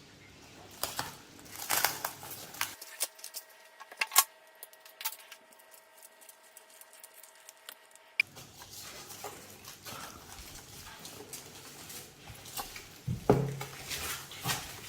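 Soap slime being mixed and handled: a run of sharp, wet clicks and crackles, with a quieter stretch in the middle and a few louder pops near the end.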